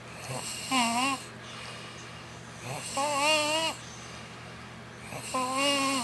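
A sleeping girl snoring: three snores at an even breathing pace, each a pitched, warbling tone that wobbles up and down and sounds like an animal call.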